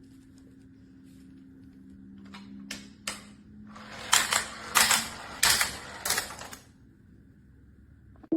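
Small wooden cars clacking down a wooden zigzag ramp racer toy: a run of sharp wooden clacks that grows louder, the four loudest about two-thirds of a second apart.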